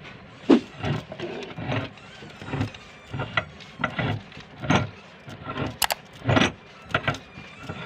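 Electric meat grinder crushing plastic animal toys: repeated sharp cracks and crunches, about one or two a second, over the grinder's steady motor noise.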